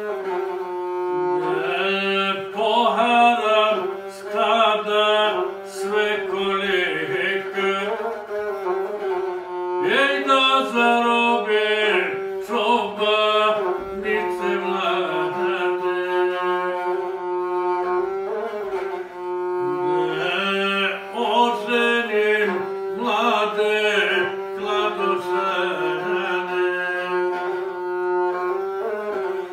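A gusle, the single-string bowed fiddle of Montenegrin epic song, bowed steadily around one held note with small melodic turns. A man sings along with it in phrases.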